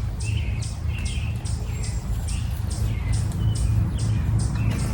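A bird chirping over and over, short high chirps about twice a second, over a low steady rumble.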